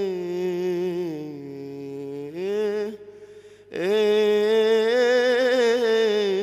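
A nasheed singer holding a long drawn-out note on the end of a line, which fades about three seconds in, then a second long sustained note.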